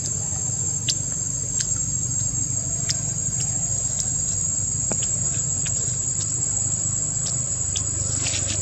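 Steady high-pitched drone of insects, with a low steady rumble underneath and scattered faint clicks.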